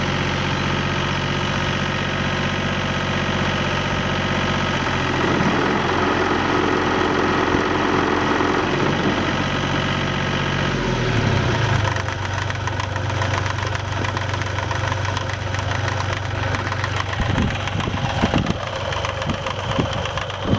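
Vermeer LM42 backhoe machine's engine running steadily. Its note shifts about a quarter of the way in and drops to a lower pace about halfway through. After that come scattered short knocks and clanks.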